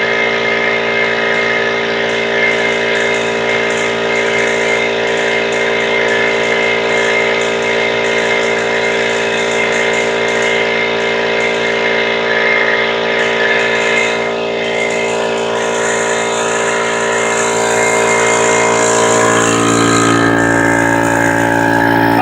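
Harbor Freight 21-gallon oil-lubricated air compressor running loud and steady, its motor and pump filling the tank on its first run-in. Its tone shifts and it gets a little louder near the end.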